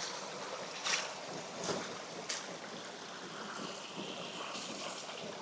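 River water rushing steadily, with three short splashes in the first half.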